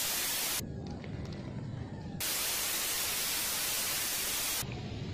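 Hiss of analogue video static in two bursts: a short one at the start and a longer one of about two and a half seconds beginning about two seconds in, with a quieter low rumble between them.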